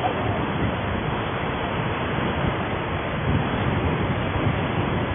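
Steady rushing noise of riding along a street: road and engine noise mixed with wind on the microphone, with no distinct events.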